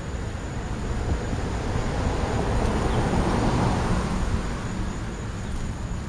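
A car passing on the street: its tyre and engine noise swells to a peak about halfway through, then fades away.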